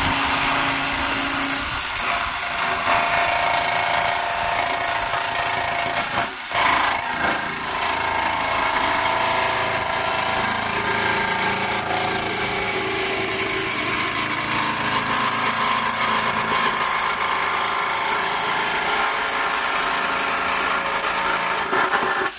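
Electric jigsaw sawing through the sheet-metal front wing of a car body, running continuously with a brief dip about six seconds in.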